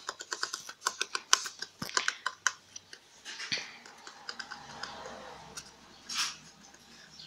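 A lop-eared rabbit gnawing a cardboard toilet-paper tube: a rapid run of crisp crunching bites for about two and a half seconds, then softer scraping as the tube is nosed and pawed about, with a brief rustle of cardboard near the end.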